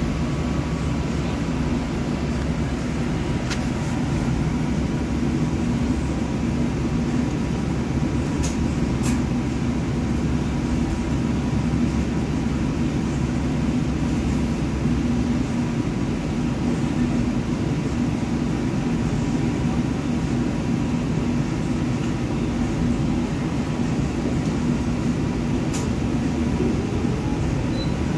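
Cabin noise of a Bustech ZDI battery-electric bus under way: steady road and tyre noise with a constant hum from the drive. A few sharp ticks and rattles break through now and then.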